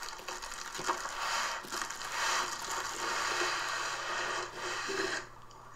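Cardboard box being opened and a laptop in a plastic bag and foam end caps slid out of it: cardboard scraping and plastic rustling, with a couple of light knocks in the first two seconds.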